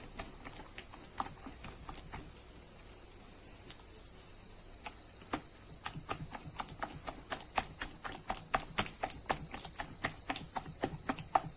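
A hand beating a wet flour batter in a tilted bowl, making quick slapping and squelching strokes. The strokes are sparse at first, then come faster and steadier, several a second, from about halfway.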